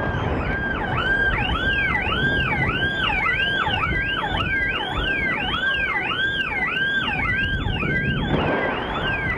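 An electronic alarm wailing up and down about twice a second, over a low rumble as a concrete tower collapses in an explosive demolition.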